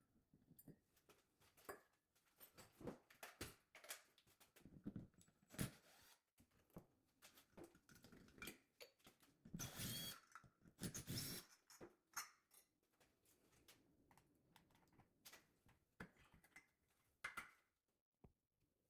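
Faint clicks, taps and scrapes of small metal parts being handled as the set screw of a Moen single-handle shower valve handle is worked with a hex key and the handle is taken off. A louder scraping stretch comes about ten seconds in.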